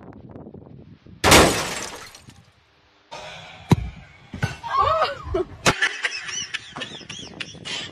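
A sudden loud crash about a second in that fades away over a second, then sharp knocks and brief high-pitched voices.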